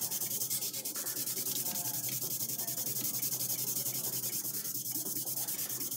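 240-grit sandpaper, Mirka, rubbed by hand in quick back-and-forth strokes along a steel knife blade: a steady rhythmic scratching, several strokes a second. The blade is being reground by hand to take out old scratches.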